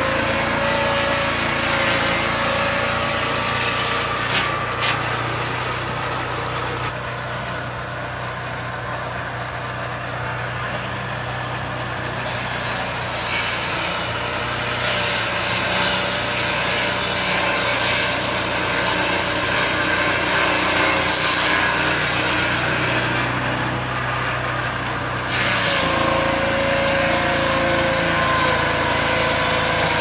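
Peterson WPF swing-blade sawmill's engine running at working speed while its circular blade cuts through a log, a steady engine note mixed with cutting noise. The sound shifts abruptly a few times, around a third of the way in and again near the end.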